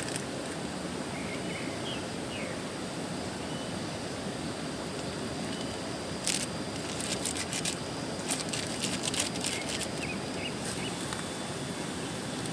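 Steady rushing outdoor background noise with a few short bird chirps. From about six to ten seconds in, a run of sharp clicks and rustles.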